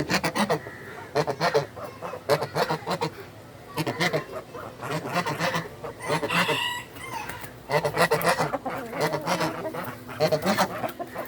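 White Frizzle Heera Aseel chickens clucking and calling in a steady run of short, repeated calls, with one longer call about six seconds in.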